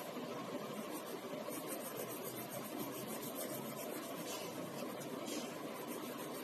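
Pencil scratching on paper in short, faint strokes over a steady background hiss.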